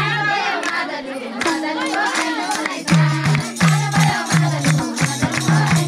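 Nepali folk dance music: voices singing over hand clapping, with madal hand drums coming in about three seconds in and beating a steady rhythm.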